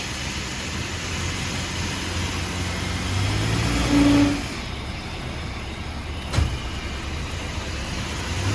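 2018 Honda Civic driving, with steady road and tyre noise and a low rumble. The noise swells louder about four seconds in, and a single sharp click comes a couple of seconds later.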